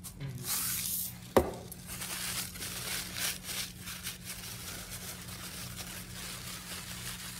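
Hands rubbing together and scrunching a crumpled brown paper towel, a soft continuous rustle, with one sharp knock about a second and a half in as a salt canister is set down on the table.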